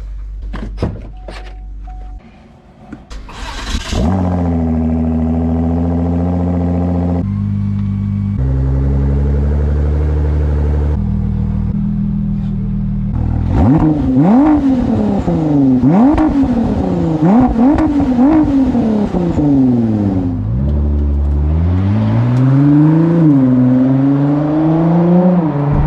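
New Ford GT's twin-turbo 3.5-litre EcoBoost V6 through a QuickSilver aftermarket exhaust, starting up about three and a half seconds in and idling with its speed stepping down. From about thirteen seconds on it is revved repeatedly, each rev rising sharply and falling away.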